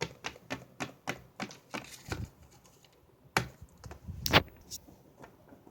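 Small plastic toy figures and pieces clicking and tapping as they are handled and set down, in an irregular run of light clicks with two louder knocks a little past the middle.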